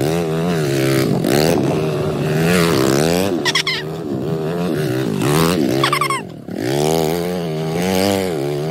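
Dirt bike engine revving, its pitch rising and falling with the throttle about once a second, with a brief drop off the throttle about six seconds in.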